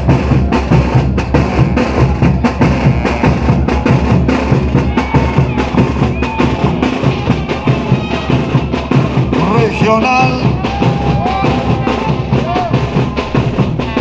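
Andean brass band playing a steady beat on bass drums, snare drums and crash cymbals, with tubas and trumpets carrying the tune.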